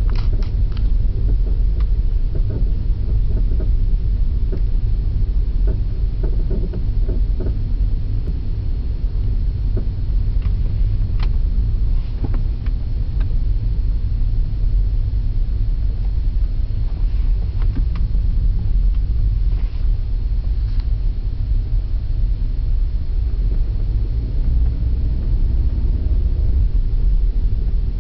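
Steady low rumble from a 2001 Audi A6 2.8, the weird noise the owner traces to the front right wheel, with a few faint ticks scattered through it. The owner does not know its cause.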